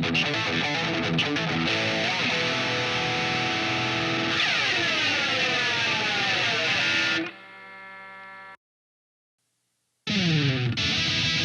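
Distorted electric guitar played through effects pedals, with pitches sliding downward in sweeps midway through. About seven seconds in it drops to a quieter sustained note, cuts to a second and a half of silence, then the loud distorted guitar comes back in with another falling slide.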